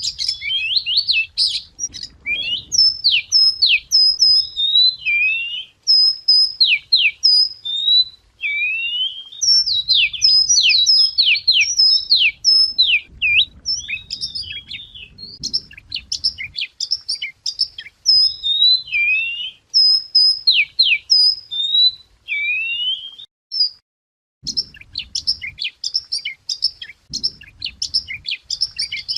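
A wagtail singing: fast, repeating phrases of sharp whistled notes, quick up-and-down sweeps and twitters. The phrases come almost without pause, with one brief break a little over three-quarters of the way through.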